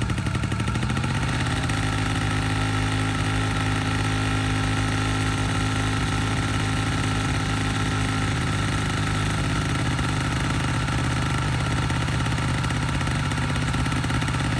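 Honda Spree scooter's 49cc two-stroke single-cylinder engine idling steadily, just started after years of sitting unused. It settles into an even idle within the first second.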